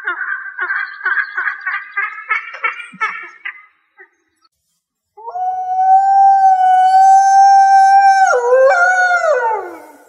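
A Steller's sea eagle gives a fast series of yelping calls, about three a second, for the first three seconds or so. After a short pause, a grey wolf gives one long, steady howl that drops in pitch and breaks near the end.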